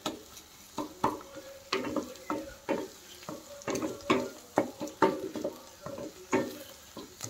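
Chopped onions and garlic frying in oil and ghee in a non-stick kadhai, stirred with quick repeated scraping strokes of a utensil against the pan, about two or three a second, over a light sizzle.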